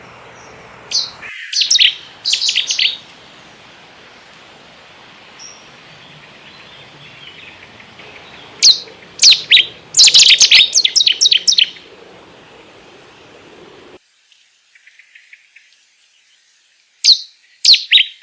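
Cetti's warbler singing: three loud, sudden bursts of rapid, sharp, high notes, separated by pauses of several seconds.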